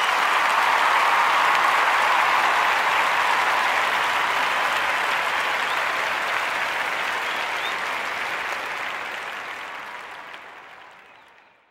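Crowd applause, a dense steady clapping that tapers and fades out near the end.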